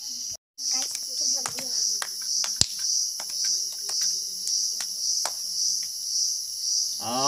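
Shrill insect chorus, a steady high buzz pulsing about twice a second, with scattered light clicks and taps; the sound cuts out for a moment just after the start.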